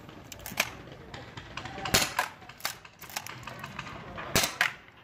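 APS CAM870 pump-action paintball shotgun being fired: a series of sharp pops and clacks. The loudest comes about two seconds in and another near the end, each followed quickly by a lighter clack.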